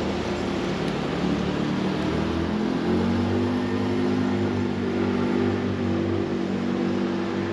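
A motor running with a steady pitched hum. Its tone shifts and grows fuller about three seconds in.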